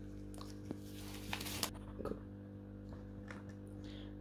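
Faint rustling of disposable gloves and small clicks and scuffs of plastic parts as an Anki Vector robot's head is worked apart by hand, over a steady low hum.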